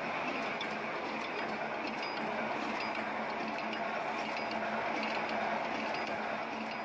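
Holland mesh welding machine running: a steady mechanical clatter with a low hum beneath it and light metallic clinks scattered through it.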